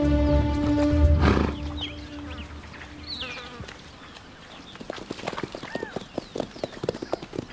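Background music ends about a second and a half in. About five seconds in, a brumby's galloping hoofbeats start on grassy ground, a quick uneven run of dull thuds.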